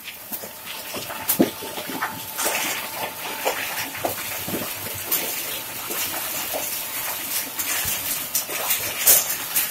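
Twin-shaft shredder crushing medical-waste plastics: a continuous grinding with frequent, irregular sharp cracks and crunches as the plastic breaks, over a faint steady whine in the first half.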